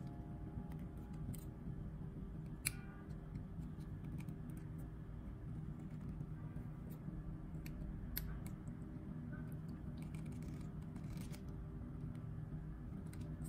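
Needle-nose pliers clicking and scraping on thin wire as it is gripped and bent into a coil, a scatter of small sharp metallic clicks with a louder one about two and a half seconds in and another around eight seconds, over a low steady hum.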